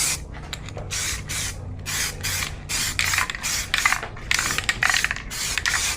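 Aerosol spray can of primer hissing in repeated short bursts, a little under two a second, as light sweeping coats go onto a wheel rim.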